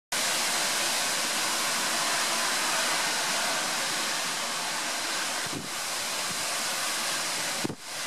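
Strong storm wind blowing through large oak trees: a steady rushing hiss of leaves and branches. Two brief low knocks, one just past halfway and one near the end.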